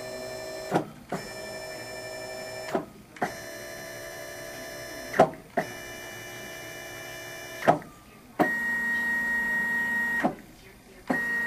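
Three unloaded stepper motors on a bench being jogged in turn by their drivers: a steady singing whine in runs of about two seconds, each starting and stopping with a click, with short pauses between. Near the end the pitch shifts and the whine gets louder.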